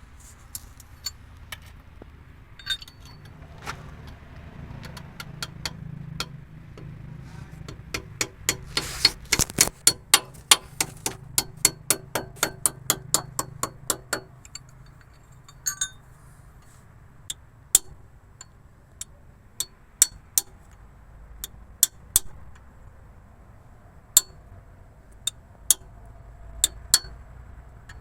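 Metal tools clinking and striking on metal parts, with a run of quick ringing taps, about three or four a second, in the middle, then scattered single clinks over a low hum.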